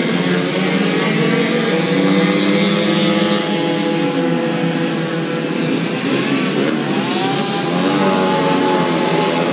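Several racing mopeds' small engines buzzing at high revs around the track, their overlapping pitches rising and falling as they pass.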